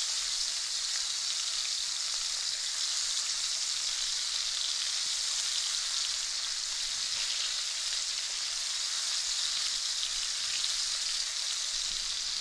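Cornstarch-coated prawns frying in hot oil in a pan, sizzling steadily.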